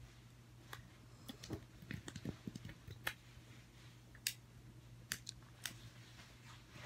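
A fidget cube being fiddled with: a scattering of small, sharp plastic clicks from its buttons and switches, irregular and a few to the second, busiest about two seconds in.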